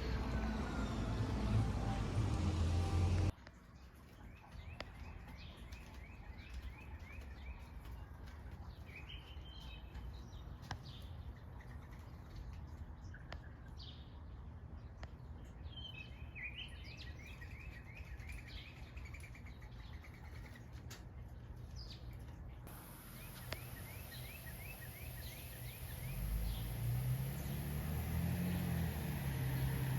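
Small wild birds chirping, with short quick calls repeated throughout. A low engine rumble rises near the end.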